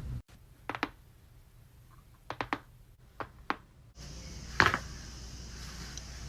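Neck joints cracking during chiropractic neck adjustments: a series of short, sharp pops in small clusters of two or three, the loudest pair about four and a half seconds in.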